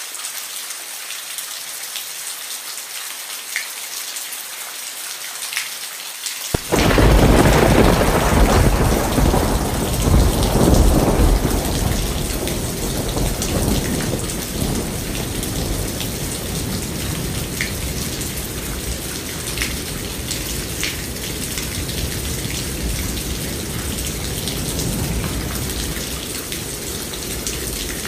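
Steady rain falling, with single drops ticking close by. About six seconds in, a loud clap of thunder breaks in suddenly and rolls on as a long, deep rumble that slowly dies away under the rain.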